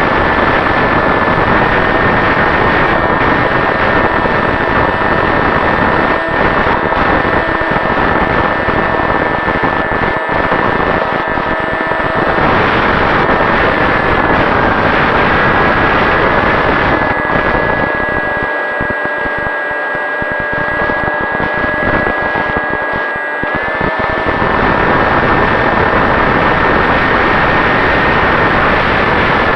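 Electric brushless outrunner motor (Turnigy 3542 1450kv) spinning an 8x4 propeller on a flying-wing RC plane, a steady high whine that shifts a little in pitch with throttle. Heavy wind rush and buffeting on the microphone sits under it, easing for a few seconds about two-thirds of the way through.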